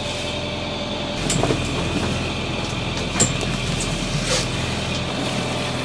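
Strong wind buffeting a sailboat's cockpit enclosure over a steady low hum, with a few sharp knocks and rattles scattered through.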